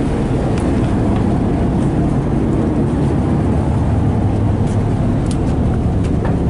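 A boat's engine running with a steady low drone, heard from on board.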